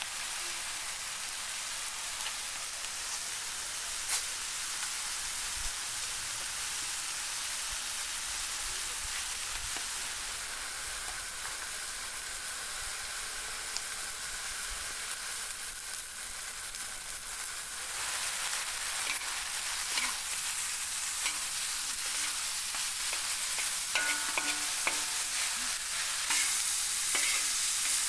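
Food frying in hot oil in a pan, a steady sizzle that grows louder a little past halfway. Occasional sharp clicks, and a run of taps with brief metallic ringing near the end.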